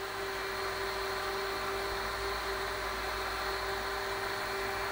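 UAVP quadcopter's motors spinning steadily at low throttle: an even hum with one steady whine tone that neither rises nor falls.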